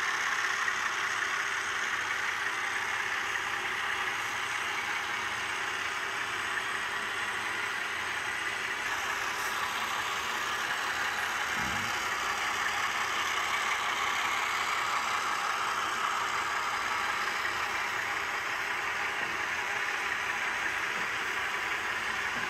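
Model trains running on the layout track: a steady rolling rush of metal wheels on rails with motor hum. A brief low thump comes about halfway through.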